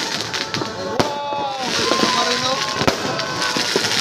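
Aerial fireworks going off: dense crackling throughout, with sharp bangs about a second in and again near three seconds.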